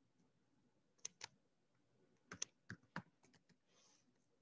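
Faint, scattered computer keyboard keystrokes: a couple of taps about a second in, then a quick cluster of several more.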